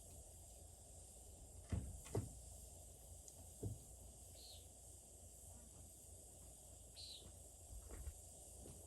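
Quiet outdoor background with three faint, short knocks in the first few seconds and two brief high chirps later on.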